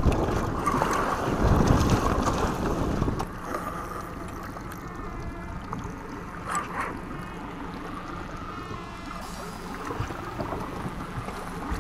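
Wind buffeting the microphone over choppy water, with a Yamaha outboard motor running on the boat. The wind noise is loudest in the first three seconds, then settles to a steadier, quieter hiss.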